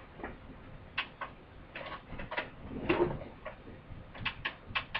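Irregular clicks and light knocks of small objects being handled, about a dozen in five seconds, with a louder knock about three seconds in.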